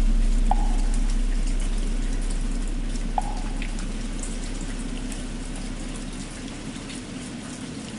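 Steady rain falling while the deep hum of a large struck bell slowly fades away. Two short, soft knocks sound about half a second and three seconds in.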